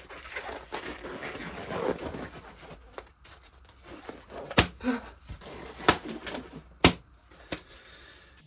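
Rustling handling noise, then three sharp knocks about a second apart in the second half, the loudest sounds.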